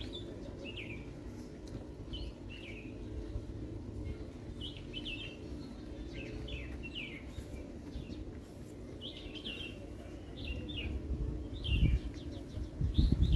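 Small birds chirping: short falling chirps repeated every second or so, over a steady low rumble, with a few loud low bumps near the end.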